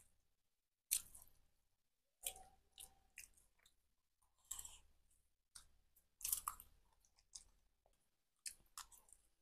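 Quiet eating sounds of a person eating rice by hand: chewing with soft crunches and short clicks, a few every second or so, with quiet gaps between them.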